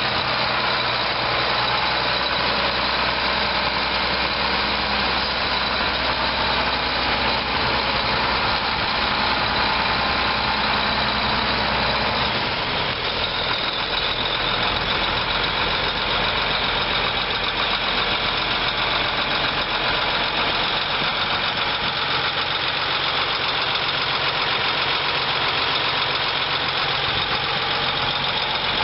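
John Deere 8650 tractor's 10.1-litre six-cylinder turbo diesel running steadily. About twelve seconds in, the low rumble drops away and the higher-pitched part of the sound grows stronger.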